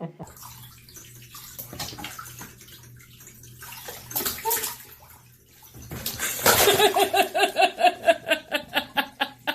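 Water splashing and sloshing in a bathtub. About six seconds in, a loud run of short repeated voiced sounds starts, about three a second.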